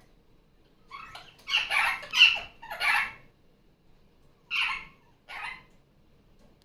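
Barraband parakeet (superb parrot) giving loud, harsh squawking calls: a quick run of about five, then two more a second apart.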